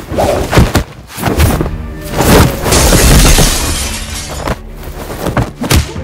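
Designed fight-scene sound over a music score: a few sharp punch and body-hit impacts, then a loud crash lasting about two seconds, with more lighter hits after it.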